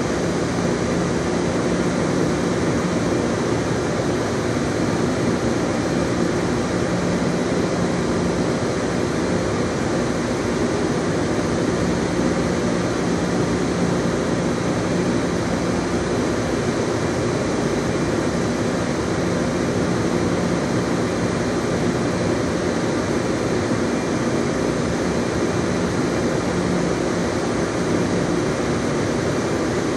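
Steady mechanical drone with a low hum, unchanging, of airport machinery such as idling aircraft engines or ground equipment heard across the airfield.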